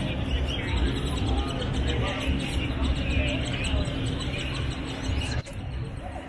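Busy street ambience: music with a heavy bass, birds chirping and a murmur of voices. The sound drops suddenly about five seconds in.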